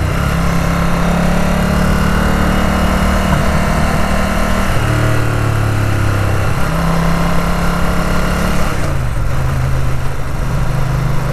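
Ducati 900 SS's air-cooled, carburetted V-twin running on the road, heard from the rider's position. The engine note holds steady, drops about five seconds in, comes back up a couple of seconds later, and drops again near the end as the throttle or gear changes.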